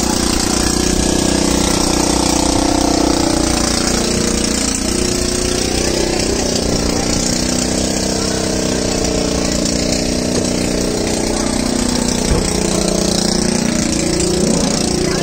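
A heavy engine idling steadily with a fast, even pulse, with one short knock about twelve seconds in.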